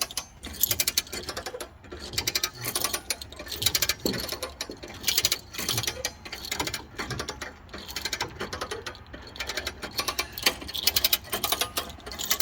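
Come-along hand winch being ratcheted: repeated bursts of rapid clicking from the pawl as the handle is worked back and forth, hauling a vehicle up onto a trailer.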